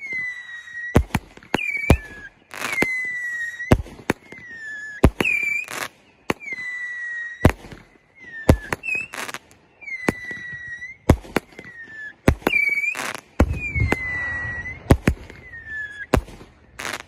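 Weco 'Neon & Blaster' consumer firework cakes firing a rapid series of shots: short whistles that each drop slightly in pitch, alternating with sharp bangs from the launches and bursts.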